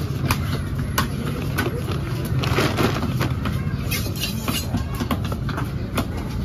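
Sharp, irregular knocks of a large fish-cutting knife striking a wooden log chopping block as shark meat is cut, roughly one a second, over a steady low rumble of background noise.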